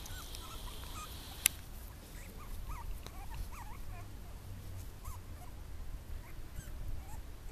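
Very young French bulldog puppies, 26 days old, making scattered short high whimpers and squeaks. A single sharp click sounds about a second and a half in.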